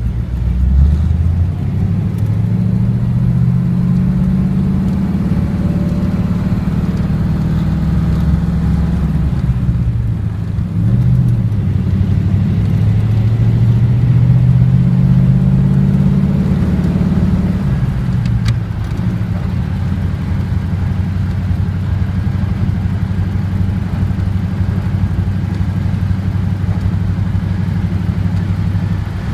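Old car's engine driving: the engine note rises as it accelerates, falls back briefly about ten seconds in, climbs again, then drops and settles into steady running for the second half.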